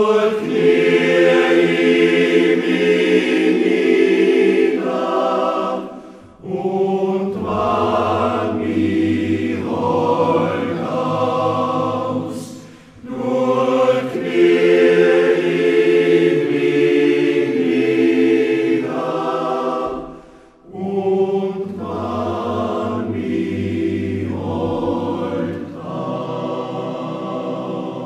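Men's choir singing unaccompanied in several voice parts, a Carinthian song, in long phrases with short breaks between them.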